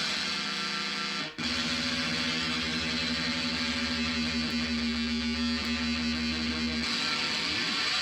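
Electric guitar played through a DIY-built ring modulator pedal of the Lovetone Ring Stinger type, held notes ringing with a dense stack of tones. The sound drops out briefly about a second and a half in, then a new note is held for about five seconds before the sound changes.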